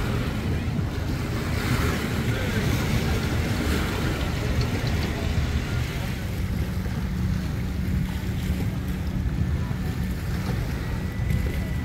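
Wind buffeting the microphone over water lapping at the dock, with a boat motor's steady hum coming in about halfway through.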